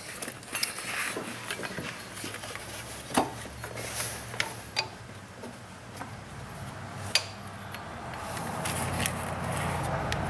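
Scattered light clicks, knocks and rubbing as a new serpentine belt is worked by hand around the engine's pulleys and tensioner, with a rustle growing louder near the end.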